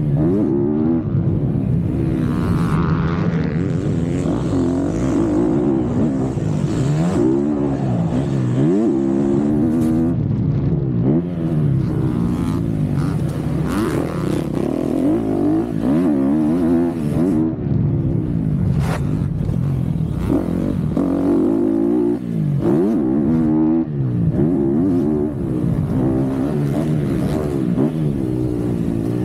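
MX2 motocross bike engine revving hard and easing off over and over as the rider works the throttle and gears, its pitch climbing and dropping every second or two, heard close up from on the bike.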